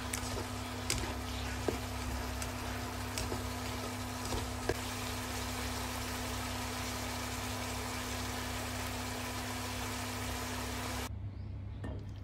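Stir-fry of egg tofu and minced pork sizzling steadily in a pan over a steady low hum, with a few sharp clicks of the spatula against the pan. The sizzle cuts off suddenly near the end, leaving only the hum.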